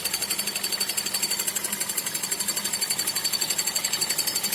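Toyota Avensis 1.8 petrol engine running with a fast, even metallic ticking, a metallic ringing that the owner cannot place: he suspects either the valves or the VVT-i coupling.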